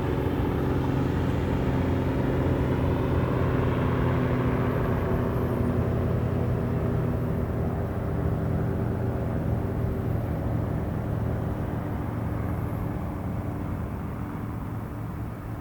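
Police helicopter circling overhead, its rotor making a steady low thrum. The sound grows gradually fainter over the second half as the helicopter moves away.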